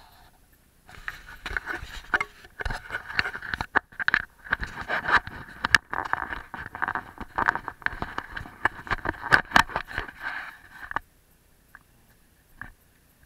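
Handling noise on an Evolio iSmart action camera: fingers rub, scrape and click against the camera body and its microphone for about ten seconds, then stop abruptly.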